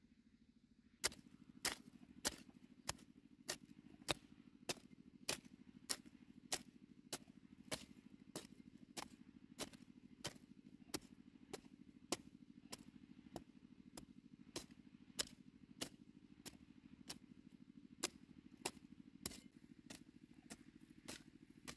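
A steady series of sharp strikes, about three every two seconds, starting about a second in, over a faint low hum.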